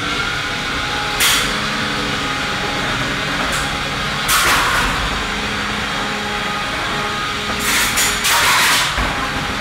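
Two 1 lb antweight combat robots fighting: a steady whine of their electric motors, broken by harsh grinding bursts as they make contact, once about a second in, again around four and a half seconds, and twice more near eight to nine seconds.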